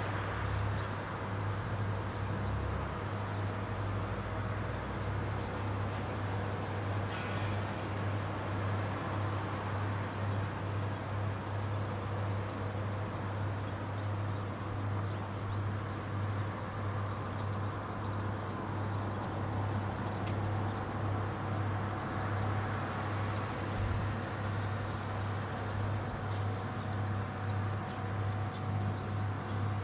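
Rice combine harvester's engine running steadily, a constant low drone.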